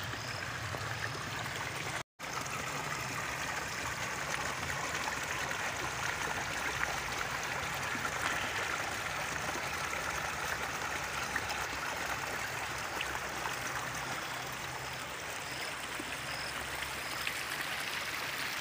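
Shallow stream running over rocks and gravel in a steady babbling rush. The sound cuts out completely for a split second about two seconds in.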